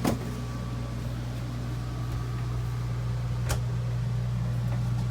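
Microwave oven running, a steady low electrical hum, with a sharp click near the start and another about three and a half seconds in; it is heating a cup of water for tea.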